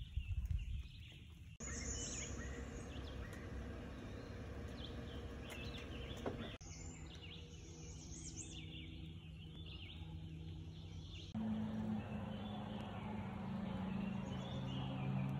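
Gypsy moth caterpillar droppings (frass) falling through the canopy onto leaves and the ground, heard as a constant rain-like patter from a heavy infestation stripping the trees. Birds chirp over it, and a low steady hum joins in near the end.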